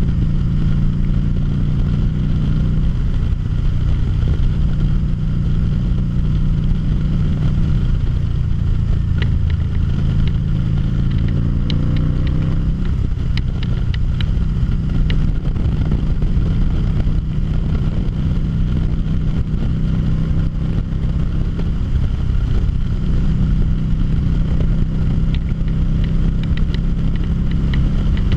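2013 Harley-Davidson V-Rod Muscle's liquid-cooled V-twin engine running steadily at road speed, heard from the saddle. Its note climbs for a few seconds about ten seconds in as the bike accelerates.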